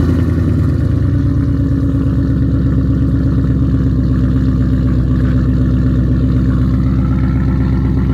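Ford Mustang 5.0 Coyote V8 with an X-pipe and resonator and muffler delete, straight-piped, idling loud and steady just after a cold start.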